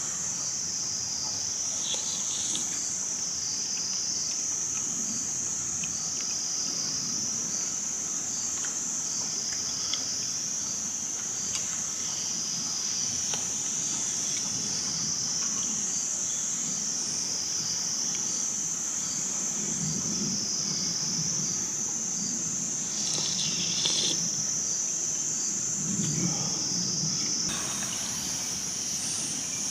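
Steady, high-pitched chorus of insects such as crickets, one continuous shrill drone. A few soft low knocks or rustles are heard underneath, about twenty and twenty-six seconds in.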